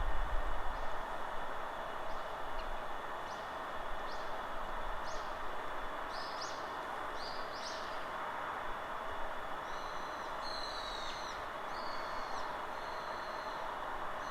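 Steady wind through forest trees with a small bird calling over it: a run of short rising chirps, then, from about ten seconds in, longer, level calls. A brief low rumble comes at the very start.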